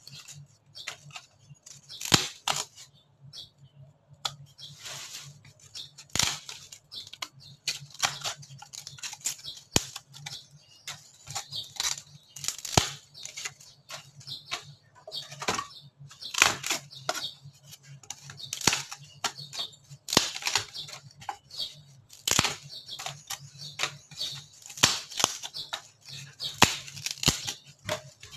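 Old ceiling board being broken and snapped by hand into smaller pieces: repeated dry cracks and splintering crackles, coming irregularly every second or two.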